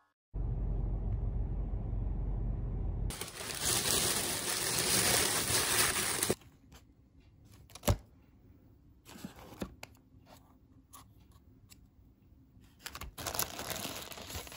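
Paper takeout packaging being handled: a low rumble, then several seconds of loud rustling, quiet handling with a sharp click about eight seconds in, and crinkling of the checkered paper sandwich wrapper near the end as it is pulled open.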